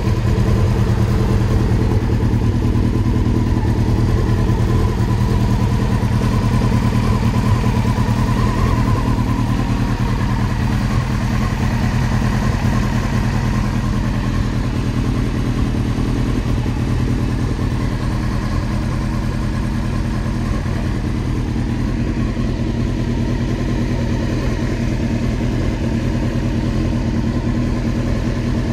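Honda CBR900RR Fireblade's inline-four engine idling steadily.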